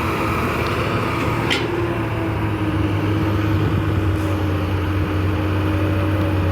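Excavator's diesel engine running with a steady low drone.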